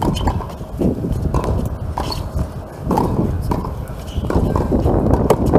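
Tennis rally on a hard court: racket strikes and ball bounces in an irregular series of sharp knocks.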